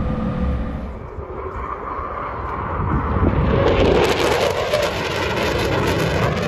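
A fighter jet flying past low: its engine noise builds from about three seconds in into a loud rushing jet roar that stays strong to the end. In the first second there is a steady mechanical hum with a couple of held tones.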